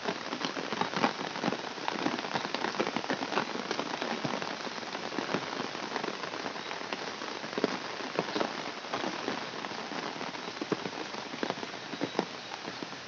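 Fairly heavy rain falling steadily on a wet concrete road, with many irregular sharp drop hits close by on an open umbrella overhead.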